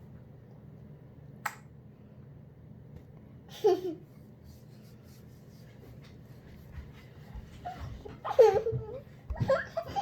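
A young child laughing: a short falling squeal about four seconds in and a louder spell of laughter from about eight seconds on. A sharp click about a second and a half in.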